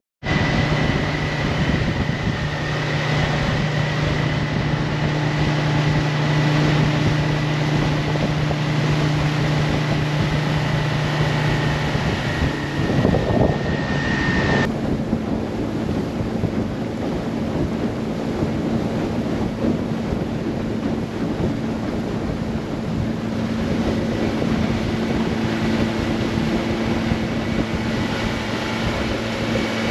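Small boat's outboard motor running steadily at cruising speed, with wind buffeting the microphone and water rushing past the hull. About halfway through, the engine note jumps to a higher pitch.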